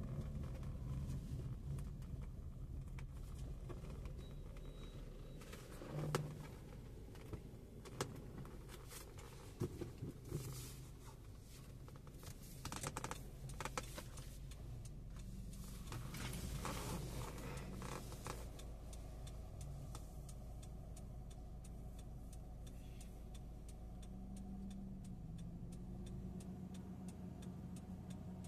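A car running, heard as a steady low engine and road hum, with scattered clicks and knocks through the middle.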